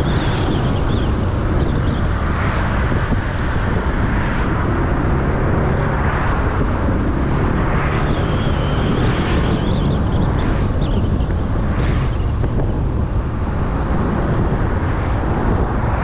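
Steady rumble of a moving vehicle with wind buffeting the microphone.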